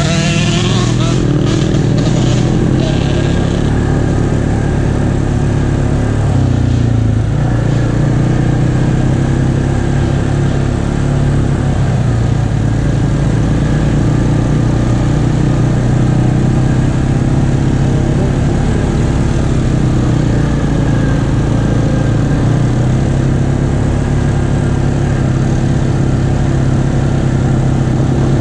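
ATV engine running steadily at cruising speed while riding along a dirt trail, with the drone of the engine holding level and no stops or big revs.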